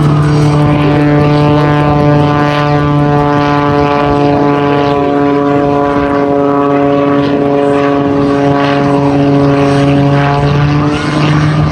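Propeller-driven aerobatic plane's engine droning loudly and steadily overhead, its pitch sagging slightly and then rising again near the end.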